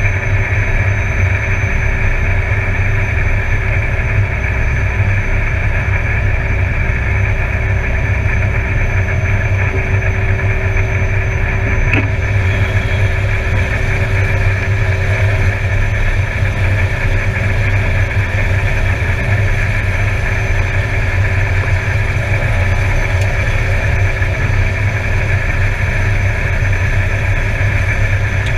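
Air Tractor 402B's PT6A turboprop engine and propeller running steadily at taxi power, heard from inside the cockpit: a low drone with a thin steady high whine over it. A single brief click about twelve seconds in.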